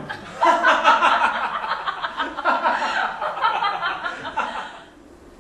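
Voices laughing and chuckling, mixed with indistinct talk, fading out about five seconds in.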